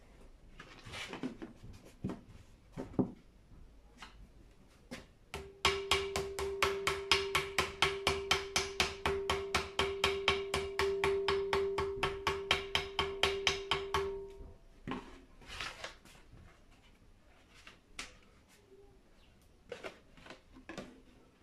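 Small ball-peen hammer tapping on gasket paper laid over the cast differential housing's cover flange, cutting a gasket out against the flange edge. It comes as a fast, even run of light strikes, about six a second for some eight seconds, over a steady ringing tone, with a few single taps before and after.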